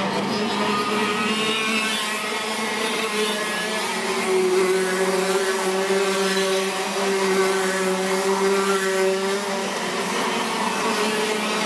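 Several racing kart engines running hard as the karts come through a corner, a steady high whine whose pitch rises and falls a little.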